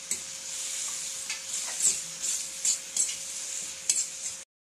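Chopped capsicum, green chilli and herbs sizzling in hot oil in a pan, with a spoon stirring and scraping against the pan in repeated strokes. The sound cuts off abruptly near the end.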